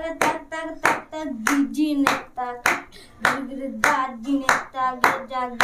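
A young voice chanting drum syllables by mouth (mukher bajna, the spoken bols of a Chhau drum pattern) in a sing-song rhythm, kept in time by sharp hand claps about every two-thirds of a second.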